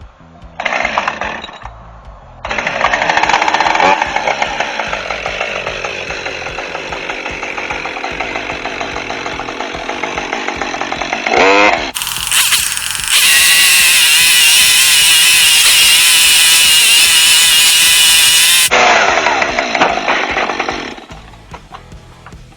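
Chainsaw cutting old wooden fence boards in several runs: a short burst, then a long cut with the engine pitch sagging under load and climbing again, a rev, a louder stretch in the middle, and a shorter cut near the end.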